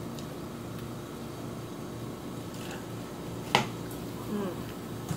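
A metal fork clinks sharply once against a ceramic salad bowl while spearing lettuce, a little past halfway, with a softer rustle of the salad just after. Under it runs a steady low room hum.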